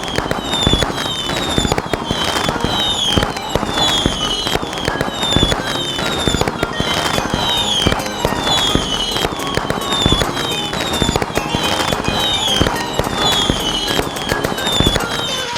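Firecrackers going off in a dense string of sharp cracks and pops, with a high falling whistle repeating about every half second.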